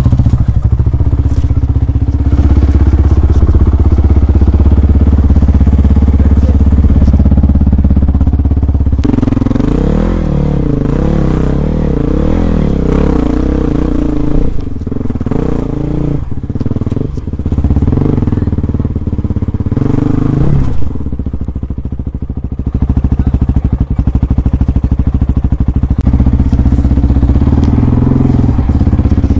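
Dirt bike engine running steadily at first, then revved up and down over and over for about ten seconds under load on a steep rock climb. It drops back briefly and settles into a steady run near the end.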